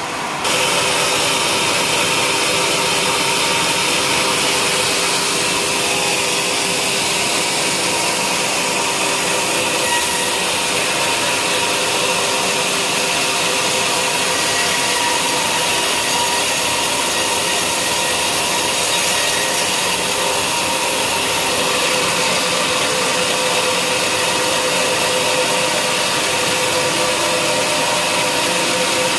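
Sawmill blade cutting lengthwise through a log of wadang timber, a steady, even sawing noise with a ringing machine tone under it. It starts abruptly just at the beginning.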